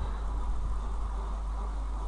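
Steady low hum with a faint even hiss of background noise, and no other event.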